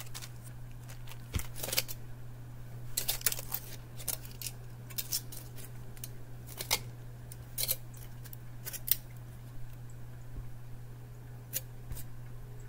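Plastic-and-foil blister pack of tablets crackling and clicking as it is handled and flexed in the fingers, in short irregular clicks that thin out after about nine seconds.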